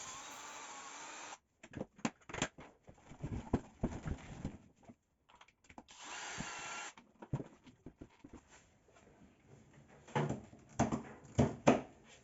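Tools and metal parts of a scroll vacuum pump being handled during disassembly: irregular clicks, knocks and rattles, with a short steady whir about six seconds in.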